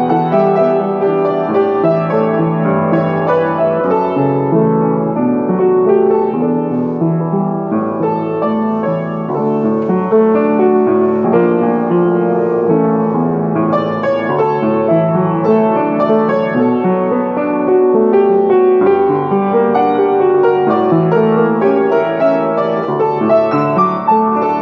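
Solo upright piano playing a medley of Filipino popular classics: a continuous melody over full chords.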